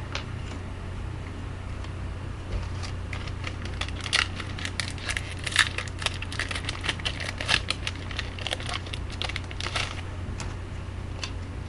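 A hockey card pack's wrapper being torn open and crinkled by hand: a dense run of crackles and clicks from about three to ten seconds in, over a steady low hum.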